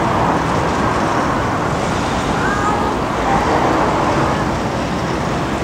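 An Airbus A400M's four TP400 turboprop engines with eight-bladed propellers run as the aircraft rolls along the runway, heard as a steady, even rush of noise.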